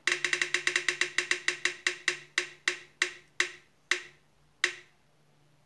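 Spin-the-wheel phone app ticking as its wheel spins: quick, even clicks at first that space out steadily as the wheel slows, stopping about five seconds in.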